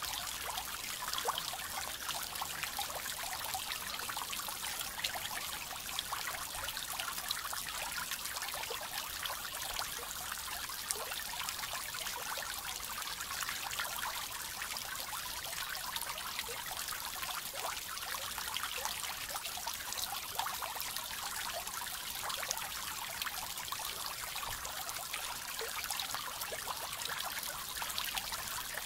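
Small garden pond fountain spraying thin jets of water that fall back onto the pond surface, a steady splashing trickle made of many small droplet impacts.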